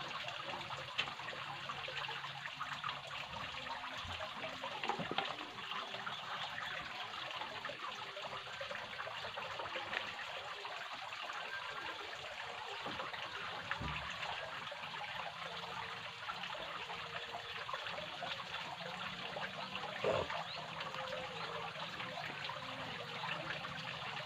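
Steady trickling and splashing of running water, with a few short knocks, the loudest about twenty seconds in.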